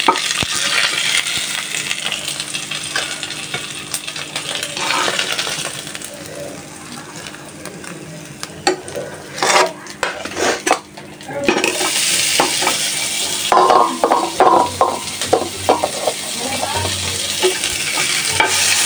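Hot oil sizzling in a frying pan as pieces of fried rohu fish are lifted out with a metal spatula. The sizzle drops for a few seconds, with a few sharp knocks, then comes back loud as sliced onions fry in the oil, with the spatula clinking and scraping against the pan.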